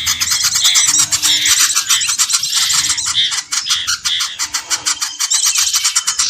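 Small birds chirping and chattering densely together over a fast run of ticking calls, several a second, from a bird-lure recording.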